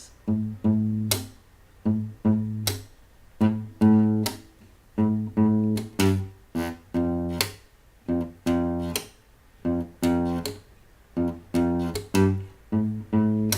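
Acoustic guitar strummed in a repeating rhythm: chords stopped short between strokes, with sharp percussive strikes on the strings.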